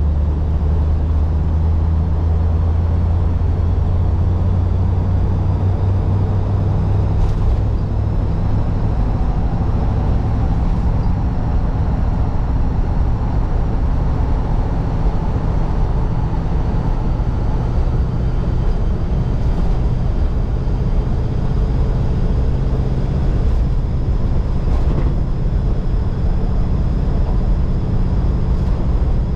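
1948 Mercury's 239 cubic inch flathead V8 running steadily while driving, with road noise and a few faint knocks.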